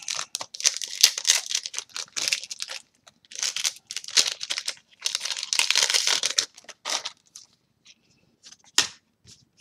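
Foil trading-card booster pack wrappers crinkling and tearing as packs are opened and the cards handled, in three noisy stretches over about seven seconds, with a few sharp clicks near the end.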